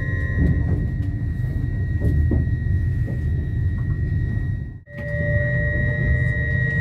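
Passenger train running, heard from inside the carriage: a steady low rumble with a constant high whine over it. The sound cuts out abruptly for a moment about five seconds in, then comes back with an extra steady tone.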